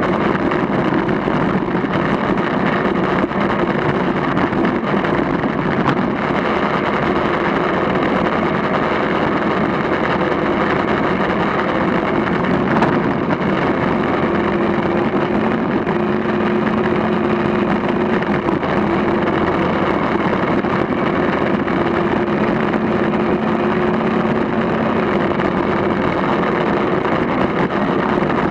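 Vehicle engine running steadily as it drives slowly along a dirt track, with an even engine drone and road and wind noise.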